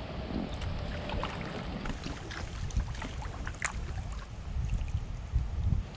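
An inflatable kayak being paddled in to shore: scattered small splashes and knocks of the paddle in the water, the strongest a little past halfway, over a steady low wind rumble on the microphone.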